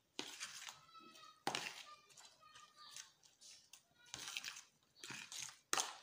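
A metal utensil stirring a stiff mix of cooked rice and chopped ingredients in a plastic tub, making a series of short scrapes and clicks against the plastic.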